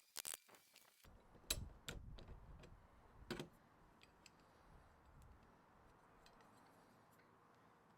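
Near silence with a few faint, scattered clicks and taps, the clearest about one and a half and three and a half seconds in.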